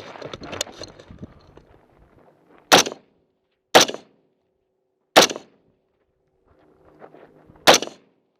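Four rifle shots at uneven spacing of about one to two and a half seconds, the first near three seconds in. They come after a couple of seconds of clicking and rustling handling noise, and there are a few soft clicks just before the last shot.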